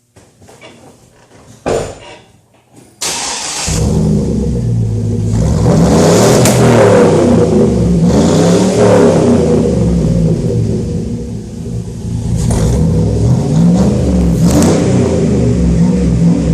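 1999 GMC Sierra's 5.3 Vortec V8 starting about three seconds in after a click, then idling and being revved twice through a Magnaflow cat-back exhaust.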